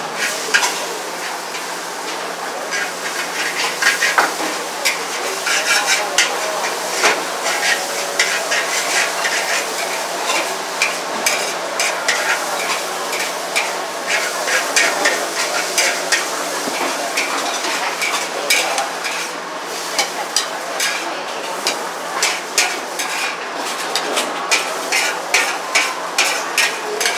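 Char koay teow (flat rice noodles) stir-frying in a hot wok: a steady sizzle under rapid, irregular clacks and scrapes of a metal spatula against the wok.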